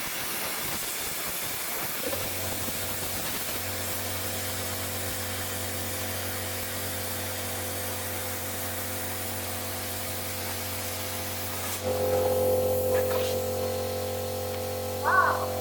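A 65-amp plasma cutter cutting metal: a steady air hiss, joined about two seconds in by a low electric hum and steady tones as the arc strikes and cuts. It gets louder about twelve seconds in, and a short wavering tone sounds near the end.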